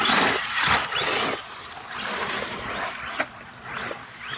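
Arrma Mojave EXB RC truck driving over dirt: its electric motor whines up and down in pitch with bursts of throttle over the rough noise of the tyres on dirt and gravel, with a sharp click about three seconds in.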